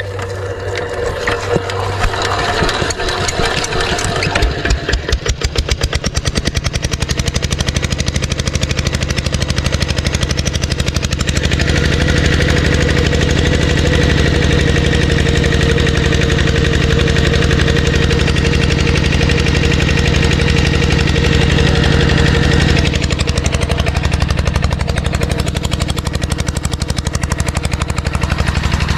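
Small diesel engine driving an irrigation water pump, running steadily. Its beat changes about five seconds in and its tone shifts again near the end.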